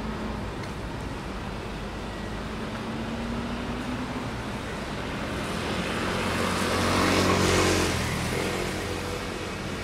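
A car passing by on a wet road: engine and tyre hiss swell to a peak about seven and a half seconds in, then fade, over a steady hum of traffic.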